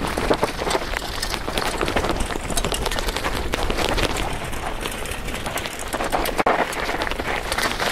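Downhill mountain bike clattering and rattling over a rocky trail, heard from a camera mounted on the bike: a constant stream of rapid clicks and knocks from tyres, chain and frame over a steady rushing noise, with a sudden brief dropout about six and a half seconds in.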